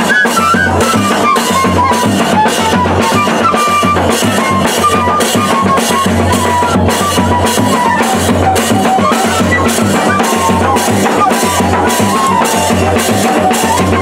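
A banda de pífanos playing: two fifes carry a melody over a steady beat from a zabumba bass drum, a snare drum and clashed hand cymbals.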